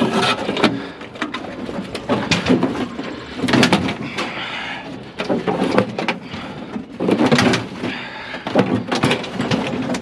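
Steel barrel grill and its loose parts clanking and scraping as they are shoved onto a wooden trailer deck: a run of irregular metal knocks and scrapes.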